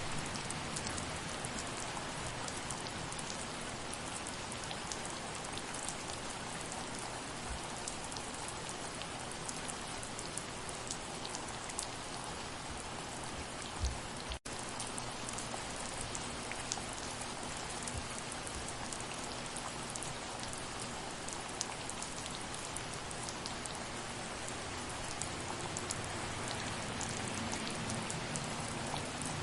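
Soft, steady rain with many individual drops ticking. About halfway through there is a brief low thump, then the sound cuts out for a split second.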